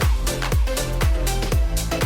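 Upbeat electronic background music with a steady deep kick drum, about two beats a second.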